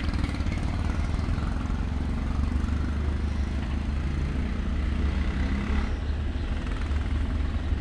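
A steady low engine rumble that holds at an even level throughout.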